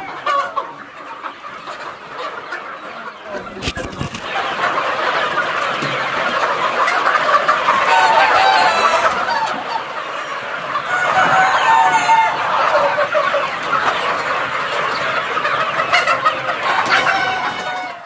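A large flock of Sonali chickens clucking and calling all together in a dense, continuous chatter, with roosters crowing now and then.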